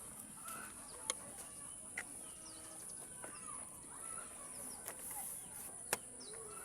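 Faint bird calls: many short chirps and little rising and falling whistles, with a few sharp ticks, over a steady high hiss.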